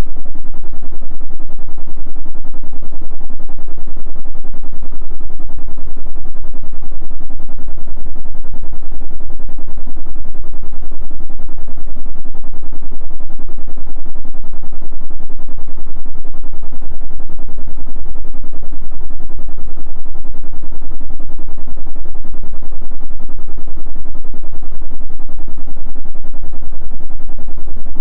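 Electric fan running steadily: a loud, even low hum with a fast, regular pulsing from the turning blades.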